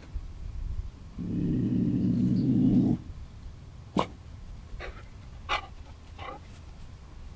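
A black dog growling: one low, steady growl lasting about two seconds, followed by a few short, sharp sounds.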